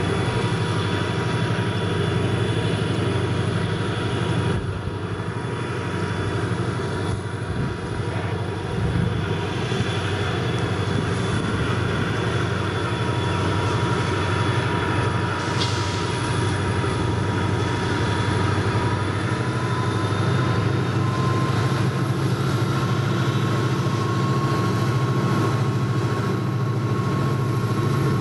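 Diesel freight locomotive approaching slowly at the head of a train of hopper cars, its engine running with a steady low drone that grows louder as it nears. A thin steady whine sits above the engine and rises slightly in pitch in the second half.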